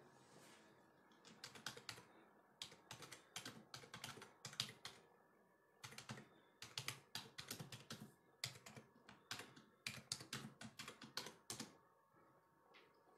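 Faint, quick clicking taps in irregular bursts, with a typing-like rhythm. They start about a second in and stop about a second and a half before the end.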